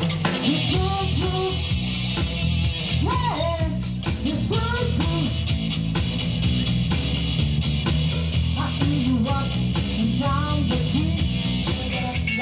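Rock band playing with a woman singing the lead: a sung melody over bass and guitar, with drums keeping a steady cymbal beat.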